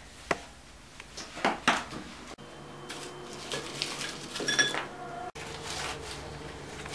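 Kitchen clatter: a few separate knocks of dishes and glassware being handled, then a ringing clink of glass about four and a half seconds in, over a faint steady hum.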